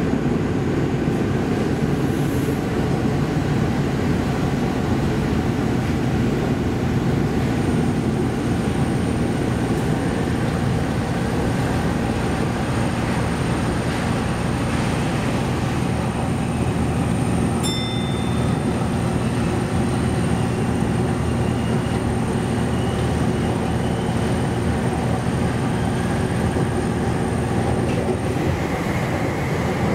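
Sendai Subway Tozai Line linear-motor train running through a tunnel, heard from inside the leading car: a steady running rumble. A faint high steady whine joins it about a quarter of the way in and stops near the end.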